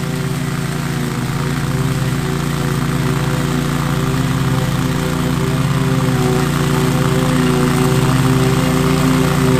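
Lawn mower engine running steadily while mowing overgrown grass, its hum growing slightly louder over the stretch.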